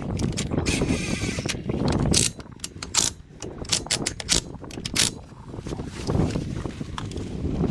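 Irregular mechanical clicks and clatter of hand tools at work on the car, with a short rattling run about a second in.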